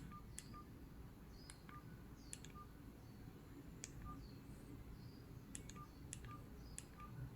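Faint short beeps from a cordless handset's keypad as its buttons are pressed to move through the menu, each with a small key click, at irregular intervals about once or twice a second.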